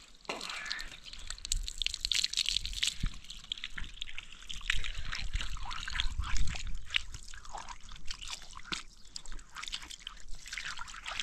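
Water running from a garden hose and splashing and trickling onto wet concrete and bare feet, an uneven patter of small splashes, with a few low bumps near the middle.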